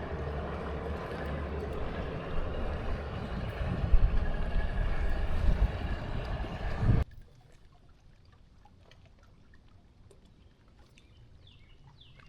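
Strong wind buffeting the microphone with lake water sloshing against a kayak, a heavy rumbling noise that cuts off abruptly about seven seconds in, leaving a quiet stretch with faint ticks.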